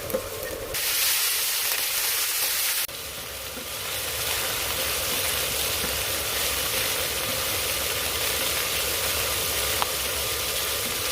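Bitter gourd sautéing in hot oil in a pan, sizzling with a steady hiss. The sizzle starts suddenly about a second in, breaks off just before three seconds, then builds back and holds steady, with a single click near the end.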